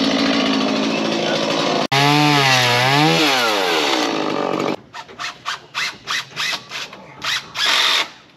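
Two-stroke chainsaw running, first cutting through framing lumber and then revving so its pitch swings up and down. Then comes a quick series of sharp knocks, a few tenths of a second apart.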